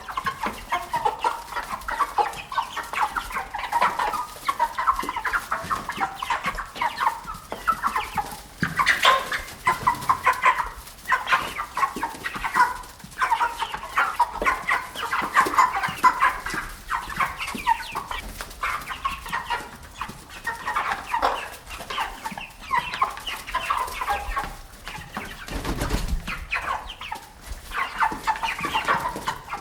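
A flock of chickens clucking continuously, many short overlapping clucks and cackles from several birds at once. A low bump shortly before the end.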